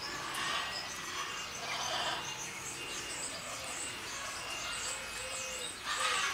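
Animal calls: many short, high chirps keep coming, with a few harsh noisy bursts about half a second, two seconds and six seconds in, the last the loudest.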